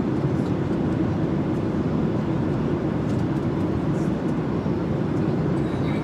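Airliner cabin noise in flight: a steady low rumble with a fainter hiss above it.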